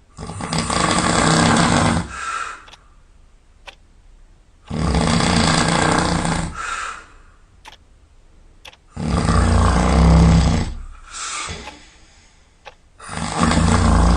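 Loud snoring: four long snores about four seconds apart, each lasting nearly two seconds and ending in a shorter, softer second sound. The last snore is still going at the end.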